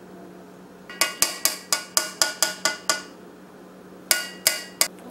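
Quick, ringing raps of a kitchen spatula against cookware (a steel saucepan and a glass measuring cup) to knock off what clings to it. About nine raps at roughly four a second, then three more after a short pause.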